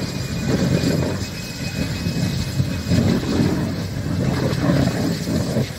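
A tractor burning fiercely: the blaze makes a continuous low rumbling noise that surges and ebbs every second or so. A faint steady high whistle sits above it.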